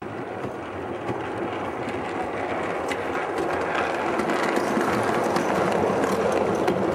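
Model train, a steam locomotive hauling coaches, running on the track: a steady rumble of wheels and motor with small clicks, growing louder as it approaches and passes close by.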